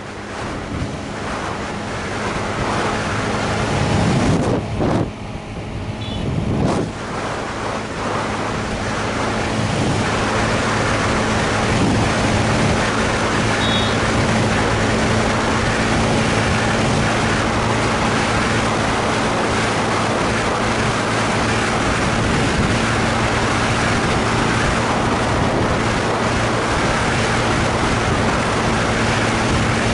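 Motorcycle engine running at steady highway speed under heavy wind rush over the microphone. The sound picks up over the first few seconds, then holds as an even drone.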